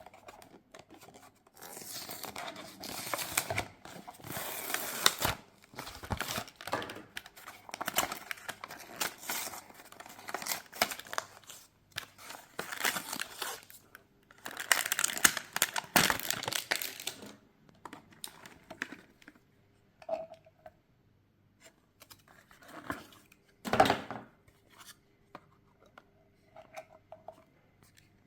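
Diecast model car packaging being torn open and crinkled by hand, in long bursts through the first two-thirds. Near the end there is a single sharp knock, the loudest sound.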